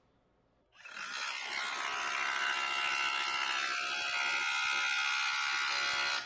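DeWalt 12V DCH072 compact SDS rotary hammer hammering its bit against a steel test fixture at full power, on a freshly charged 5 Ah battery. It starts about a second in as a fast, steady stream of blows and stops just before the end.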